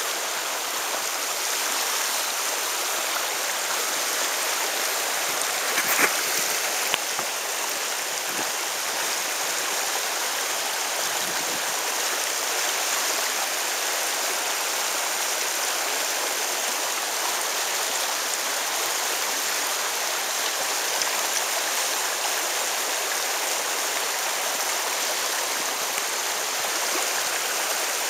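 Shallow stream running over a gravel riffle: a steady rush of flowing water, with a couple of brief clicks about six seconds in.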